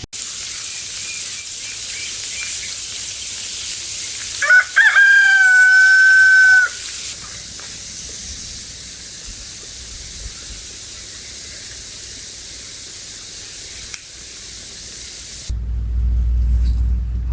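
A rooster crowing once, one long held call about four and a half seconds in, over a steady high hiss. A low rumble comes in near the end.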